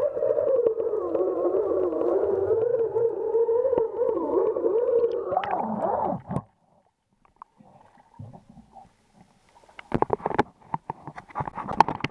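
A loud, wavering underwater hum picked up by a waterproof camera as it is hauled up on a fishing line. The hum cuts off suddenly about six seconds in, when the camera leaves the water. A few faint knocks follow, then a run of sharp clicks and knocks as the camera housing is handled.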